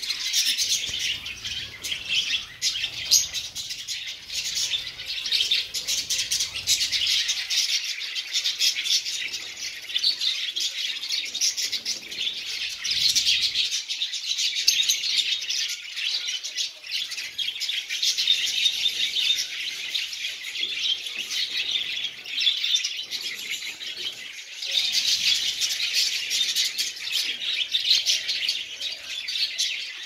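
A colony of lovebirds chirping continuously: dense, overlapping, high-pitched chatter that thins briefly a couple of times.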